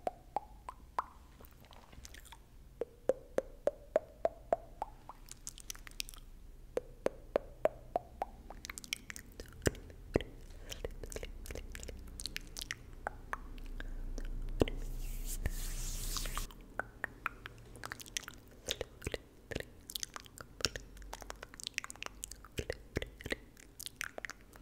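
Close-miked ASMR mouth sounds: quick wet tongue clicks and pops in runs, with a few short rising tones in the first third and about two seconds of rustling hiss a little past halfway.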